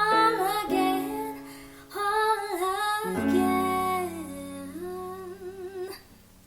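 Woman singing the song's final drawn-out notes with vibrato over plucked-string chords. The music fades out about six seconds in.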